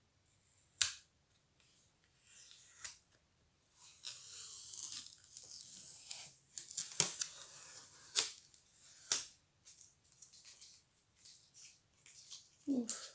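Stiff clear plastic honeycomb box being handled and pried at: the plastic crackles, with several sharp clicks and snaps.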